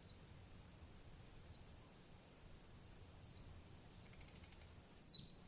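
Faint bird chirps outdoors: four short, high, downward-sliding chirps about every second or two, the last one near the end the loudest, over a low steady rumble.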